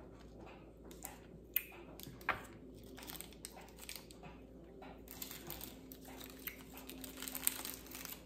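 Faint crinkling and clicking as apricot hard candies are handled and tasted, thickening in the last three seconds, with a few sharp clicks.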